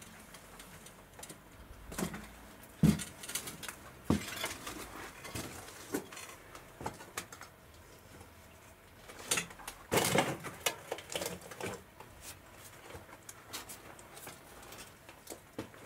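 Footsteps on a cellar floor littered with rubble and loose boards: irregular knocks, scrapes and crunches, with the sharpest knock about three seconds in and a busy cluster around ten to eleven seconds in.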